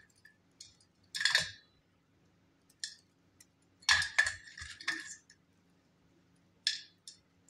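Light metallic clinks of a stainless steel plate as hands work in it, peeling layers off soaked multani mitti. A few scattered clinks, with the loudest cluster about four to five seconds in.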